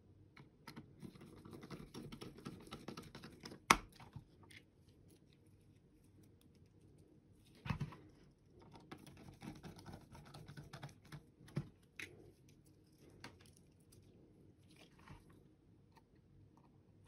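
Precision screwdriver turning small screws in the plastic underside of a SteelSeries Sensei 310 gaming mouse: faint ticking and scratching as the bit turns, in two stretches, with a few sharp clicks, the loudest a little under four seconds in.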